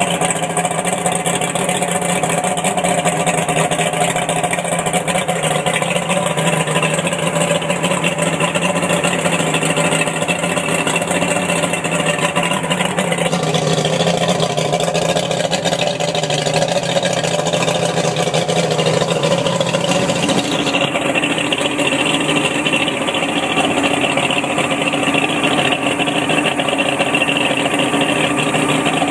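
Mercury 175 V6 two-stroke outboard motor running steadily on a stand, fed by a garden hose for cooling water. Its pitch steps up slightly about two-thirds of the way through.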